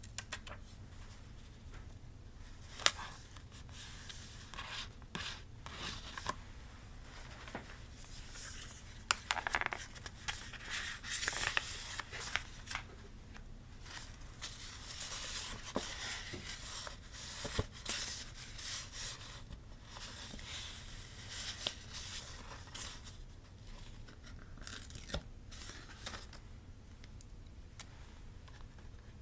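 Paper crafting close to the microphone: paper cut with scissors and torn, with rustling and small taps. A sharp tap about three seconds in is the loudest sound, and a busier stretch of rustling and tearing comes about a third of the way through.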